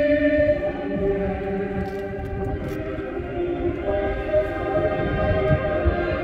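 A choir singing a slow hymn or chant in long held notes that move from one pitch to the next every second or so, with a low rumble underneath.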